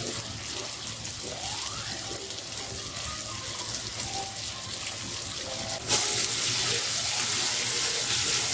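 Flour-battered chicken pieces deep-frying in hot oil in a wok: a dense, steady sizzle of bubbling oil. The sizzle gets suddenly louder and brighter about six seconds in.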